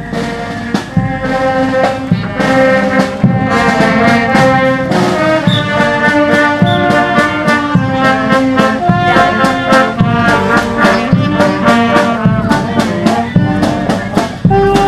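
Marching brass band playing a tune: trumpets, trombones, saxophones and a sousaphone over a steady drum beat.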